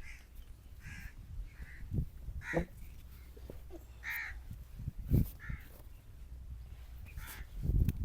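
Hand slaps and pats of a head massage, heard as a few dull thumps, the loudest about five seconds in and near the end. A bird calls over and over in the background.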